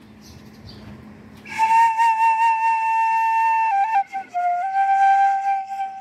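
Small Korean bamboo flute (sogeum) playing long held notes. A high note starts about a second and a half in and is held for about two seconds, wavers briefly, then steps down to a lower note that is held until near the end.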